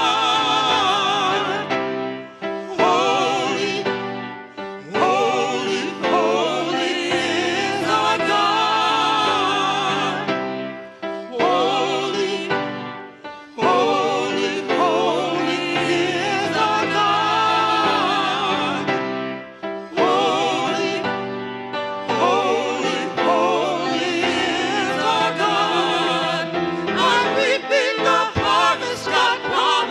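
Gospel singing: a voice with strong vibrato holding long notes over accompaniment, in phrases a few seconds long with short breaks between them.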